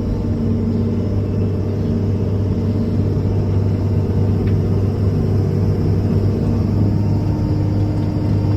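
Doosan DX300LCA excavator's diesel engine running steadily at maximum revs in power mode while the hydraulic system is loaded to test the Kawasaki K3V pump. A higher tone within the engine sound fades out about a third of the way in and comes back near the end. The bucket lacks force to close because the front pump is not delivering enough flow.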